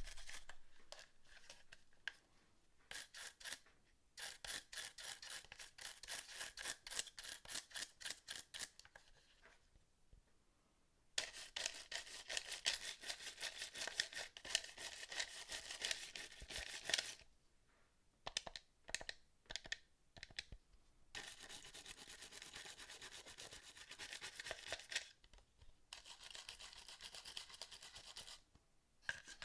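A small brush scrubbing the plastic parts of a PS4 controller in quick back-and-forth strokes. The strokes come in several runs with short pauses between them.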